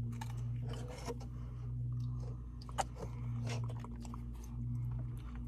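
Someone chewing a snack, with small crunches and crackling clicks, one sharper click about three seconds in, over a steady low hum.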